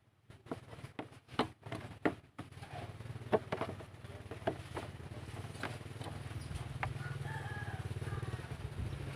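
Clicks and knocks of hand work on the motorcycle's horn fitting, then a steady low hum with a few more clicks; a rooster crows in the background near the end.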